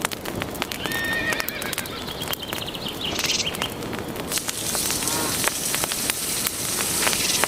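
Farmyard ambience: animal calls over a dense crackle of clicks and a steady hiss.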